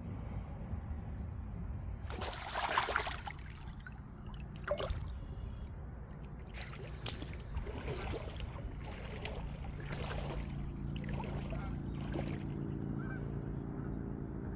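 Water splashing and sloshing in several short bursts over a steady low background rumble, with a low steady hum coming in about two-thirds of the way through.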